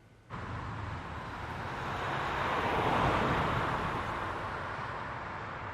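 A passing vehicle: a rushing noise starts suddenly, swells to its loudest about three seconds in, then slowly fades, over a low steady hum.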